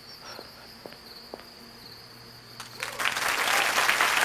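Crickets chirping steadily, with a few faint clicks. About three seconds in, audience applause breaks out and becomes the loudest sound.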